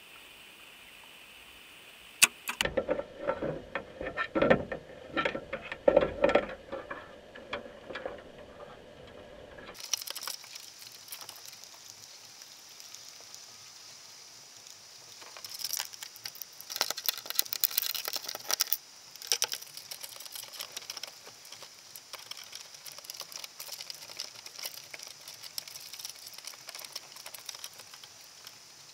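Underwater crackling and clicking inside a wire crab pot, with clusters of sharp taps and scrapes a few seconds in and again in the middle as crabs clamber over the wire and the plastic bait cups.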